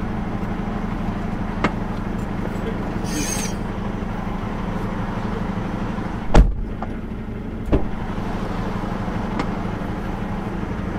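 Semi truck's engine droning steadily inside the cab as it drives on a wet highway. A brief hiss comes about three seconds in, a sharp knock about six seconds in, and a few lighter clicks.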